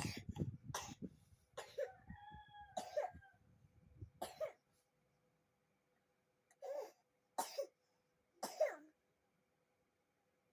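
Young child coughing in short fits: several coughs close together with a brief whimper among them, then a pause and three more coughs. The child is sick with a cough.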